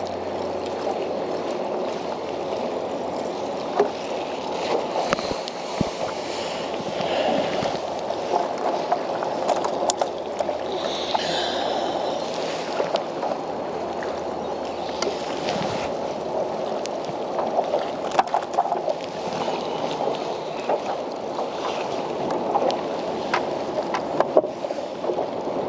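Small waves lapping and sloshing against a kayak hull, a steady wash of water noise, with a few scattered light knocks and clicks.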